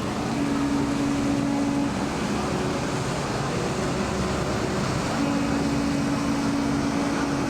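Steady mechanical hum over constant background noise. A low drone comes in near the start, stops at about two seconds, and returns about five seconds in.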